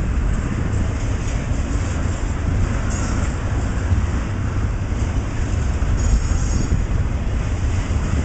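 CSX intermodal freight train's container cars rolling past: a steady rumble of steel wheels on the rails.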